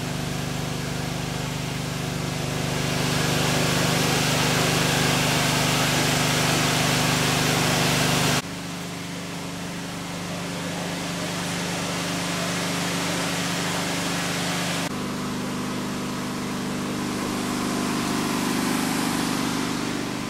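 Heavy engine running steadily at idle, a low even hum under a broad hiss. The sound changes abruptly twice, about eight and fifteen seconds in.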